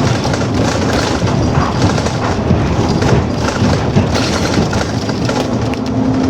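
Cabin noise of a BRT bus on the move: a steady engine and road rumble with irregular thumps and knocks.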